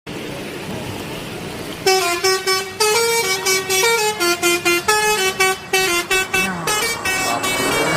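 Bus 'telolet' musical horn playing a quick tune of short notes stepping up and down in pitch, starting about two seconds in and stopping just before the end, over a steady hiss of engine and traffic noise.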